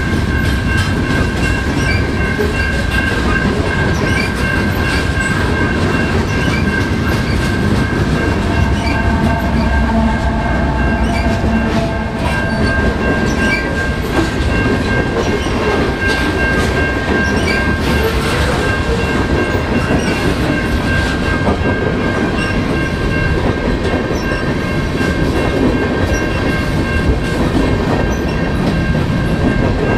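Long CN freight train rolling past at close range: a steady rumble of tank cars and covered hoppers, with wheels clacking over rail joints. A steady high ringing tone sits over it.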